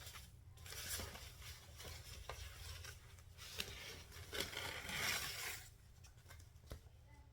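Rustling of packaging and light clicks as a UV nail lamp is unwrapped and handled, in several bouts that die down near the end.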